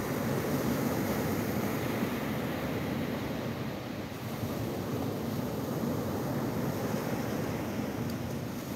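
Ocean surf breaking and washing up a sandy beach in a steady rush. It eases slightly about four seconds in, then builds again.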